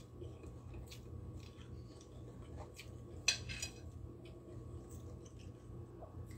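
Metal fork clinking and scraping on a plate while eating: a few light clicks, with one sharper clink a little past three seconds in, over a low steady hum.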